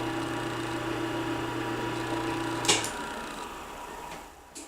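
Hobart D340 mixer running in first gear with a steady electric motor hum. About two and a half seconds in there is a click, and the motor cuts off and winds down, with another click near the end.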